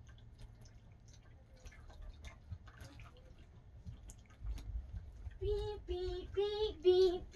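Faint small clicks and rustles, then low thumping from about four seconds in. A child's voice follows from about five and a half seconds in, singing a run of short, evenly spaced notes on nearly one pitch, about three a second.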